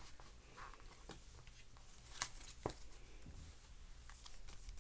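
A paper CD booklet being slid back into its CD case: faint paper rustling with a few light clicks, the sharpest two a little past two seconds in.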